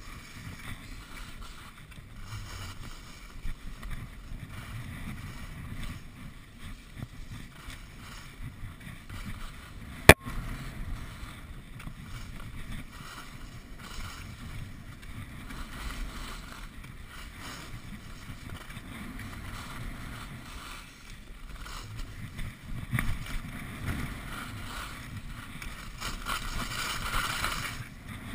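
Skis sliding and scraping over packed snow with wind buffeting the skier's own camera microphone, a steady rushing noise that swells near the end. A single sharp click about ten seconds in.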